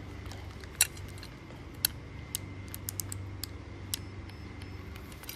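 A dozen or so irregular small sharp clicks and taps from hands handling gear, over a low steady hum.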